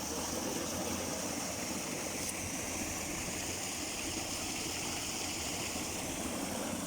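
A forest stream flowing: a steady, even rush of running water.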